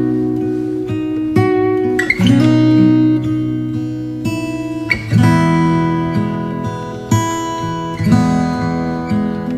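Background music: acoustic guitar playing slow sustained chords, a new chord struck every two to three seconds and left to ring.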